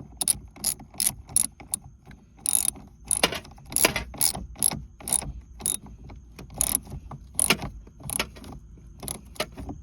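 Ratchet wrench clicking as the nut on a car battery terminal clamp is tightened: a run of sharp, irregular clicks, a few a second, stopping near the end.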